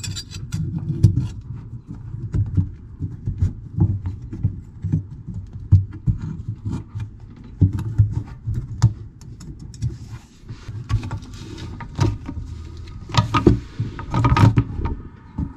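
Irregular knocks, taps and rubbing as hands work stainless-steel hose clamps onto a flexible sanitation hose at a holding-tank fitting, with dull thuds mixed in among sharper clicks.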